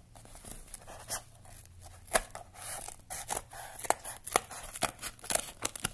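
Scissors cutting through the packing tape along a cardboard box's seam: a run of irregular sharp snips and scrapes.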